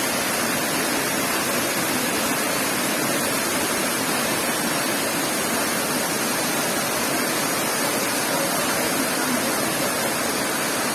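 Waterfall: a steady, even rush of falling water, with no breaks or changes.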